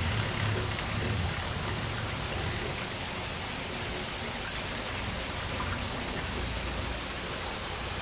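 Water pouring from a supply pipe into a hatchery tank, a steady splashing.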